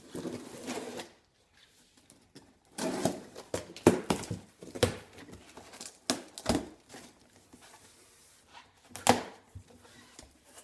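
Packaging being unwrapped by hand: crinkling and tearing, with irregular knocks and thunks as parts are handled.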